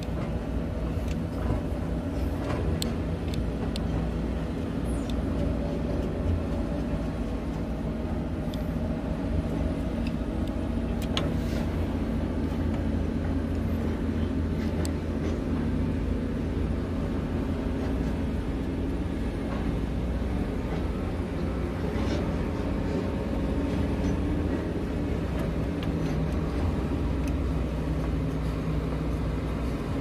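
Heavy excavator diesel engine running steadily with an even low hum, with a few faint clicks over it.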